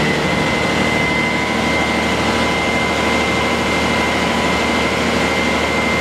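Svetruck heavy forklift's diesel engine running steadily under load, with a steady high whine on top, while the forks are lifted up the mast.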